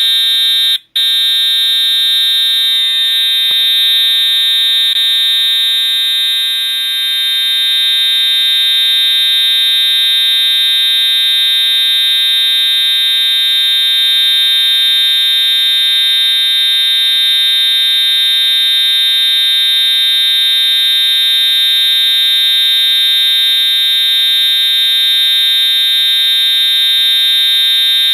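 Edwards Integrity 757-7A-T mechanical fire alarm horn sounding a loud, steady, buzzing continuous tone, its jumpers removed for continuous mode. The horn cuts out for an instant about a second in, then sounds without a break.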